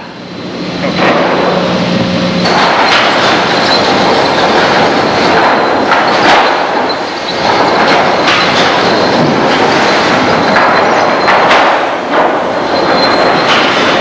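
Sawmill machinery running loud and steady, with boards knocking and clattering at irregular moments. A low steady hum drops out about two and a half seconds in.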